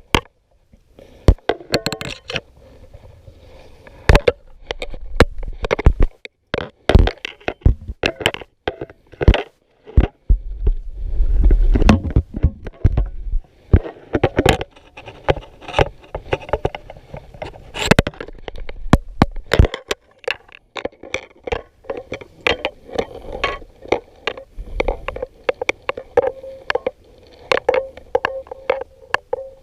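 Close handling noise while a large pike is laid down and measured: irregular sharp clicks, knocks and scrapes, with a low rumble about a third of the way in.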